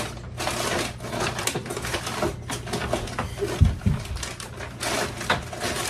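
Small containers and supplies being handled, shifted and set down, a run of clicks and rustles with a low thump a little past halfway.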